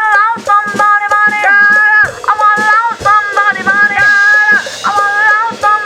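Up-tempo jazz demo backing track: a pitched melody line of held notes moving in parallel harmony over a drum kit and light shaker-like percussion.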